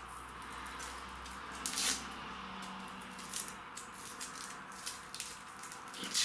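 Dry onion skin crackling and rustling as it is peeled and scraped off the bulb with a small kitchen knife, in a few short scrapes, the loudest about two seconds in.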